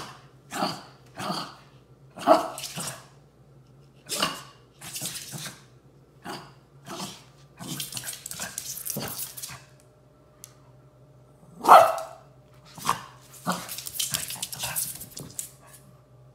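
Two shih tzus play-fighting over a dog bed, giving short yappy barks and growls in irregular bursts. The sharpest bark comes just before the twelve-second mark.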